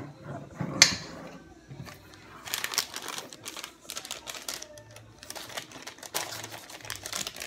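A sharp knock about a second in as the stainless steel mixing bowl is moved on the countertop. Then a plastic pouch of powdered sugar crinkles and crackles in irregular bursts as it is pulled at to tear it open.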